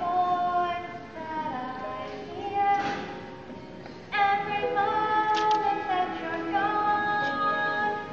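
A child's voice singing a slow song over musical accompaniment, holding long notes.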